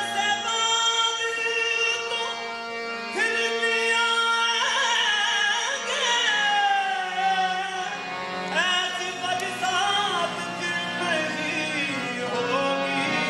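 Qawwali music: a male voice singing long wordless, gliding melodic runs between sung verses, over steady held drone notes.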